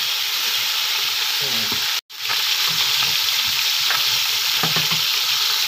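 Boneless milkfish (bangus) pieces sizzling steadily as they fry in hot oil in a pot, with a wooden spatula scraping and turning them. The sizzle cuts out for an instant about two seconds in.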